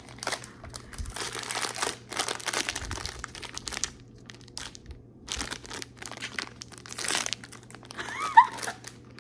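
Sonny Angel blind-box packaging being opened by hand: a run of crinkling and tearing rustles of wrapper and box, a short vocal sound near the end.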